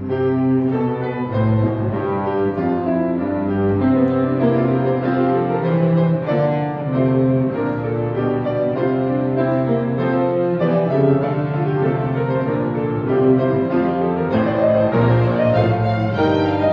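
Strings, with cello and double bass in the low parts, and piano playing a slow, sustained classical-style passage in a rehearsal run-through.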